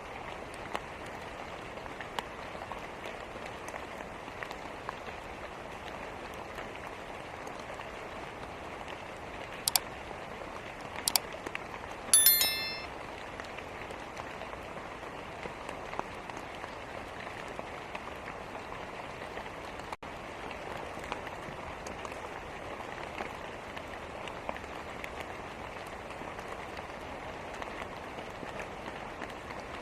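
Steady rain with a wood fire crackling over it, giving scattered small pops. There are a few sharper pops about ten seconds in, then a brief loud burst of crackling.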